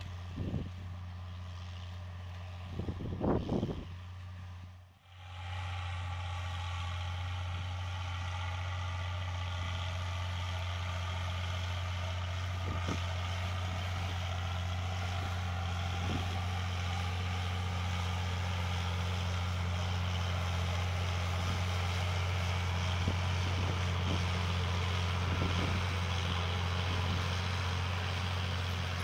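Massey Ferguson 1134 tractor's diesel engine running steadily under load while pulling an offset disc harrow, with a few knocks. The sound drops out briefly about five seconds in and then returns slightly louder.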